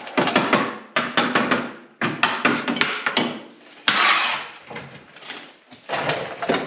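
Hand tools at work mounting a snowmobile ski: a series of sharp knocks and metallic clatter in irregular bursts about a second or two apart.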